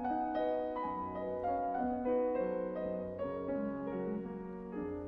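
Background solo piano music: a melody of single struck notes over chords, moving on steadily without a break.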